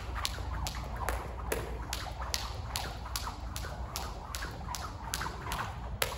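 A jump rope slapping a hard floor on every turn, in a steady rhythm of about two to three sharp slaps a second, over a low steady hum.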